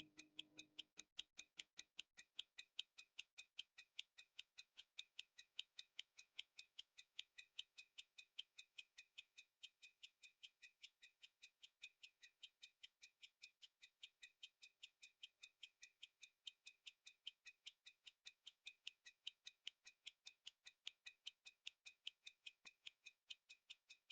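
Hamilton 974 pocket watch ticking steadily and faintly, about five ticks a second.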